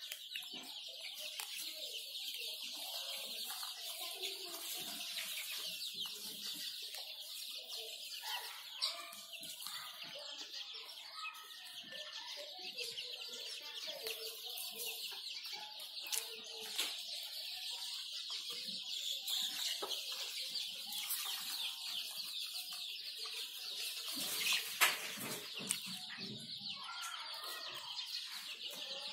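A flock of chickens clucking and calling continuously, many birds overlapping, over a dense high-pitched chorus, with a few sharp clicks.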